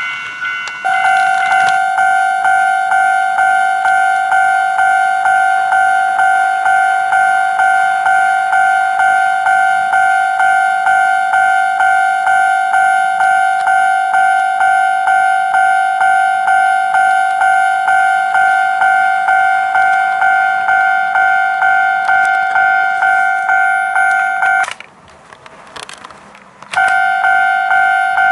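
Toy model-railway level-crossing warning signal sounding its electronic Japanese 'kan-kan' crossing bell, an evenly pulsing ding about two and a half times a second. The ring shifts to a lower pitch about a second in, cuts out for about two seconds near the end, then starts again.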